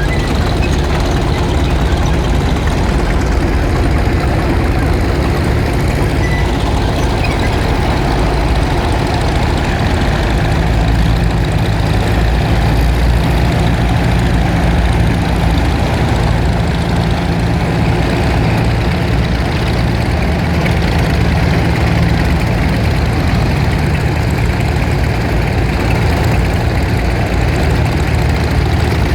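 Tractor engines running steadily at low speed, a low engine drone whose pitch shifts a little about a third and two thirds of the way through.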